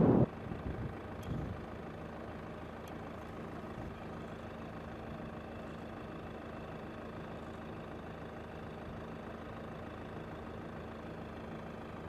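Steady low hum of several held tones, with faint hiss above it.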